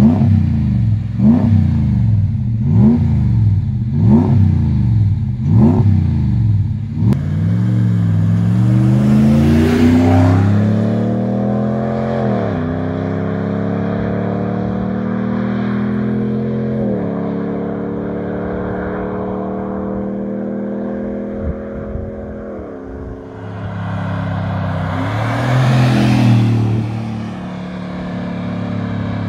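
Ram 1500's 5.7-litre V8 through a twin 3-inch stainless steel cat-back exhaust. It is blipped four times at a standstill, then accelerates away, rising in pitch and dropping at each upshift. It settles to a steadier, fading cruise and comes back past loudly about 26 seconds in.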